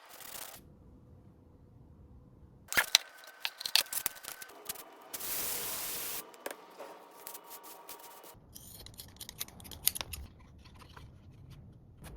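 Short bursts of hands-on workshop noise: scattered sharp clicks and knocks, and a steady hiss lasting about a second a little after the middle.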